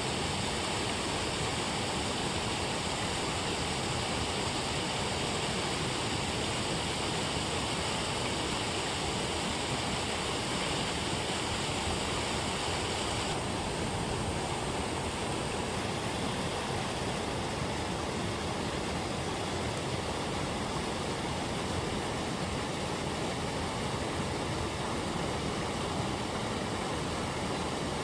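Water pouring steadily over a low weir and churning white in the pool below, a constant rushing noise.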